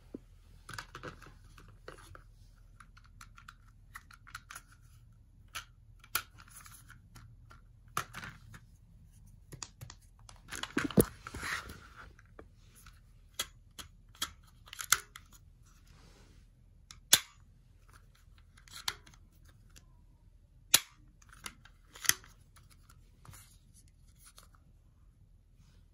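A plastic toy foam-dart crossbow being handled and loaded: irregular sharp plastic clicks and snaps, with short bursts of handling rustle.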